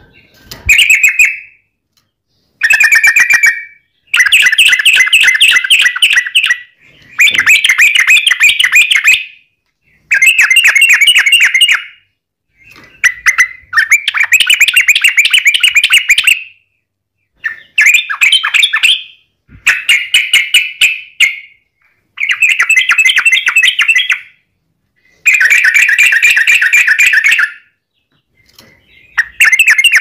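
Yellow-vented bulbul (trucukan) singing: rapid bubbling, chattering phrases, each one to three seconds long, repeated about ten times with short pauses between.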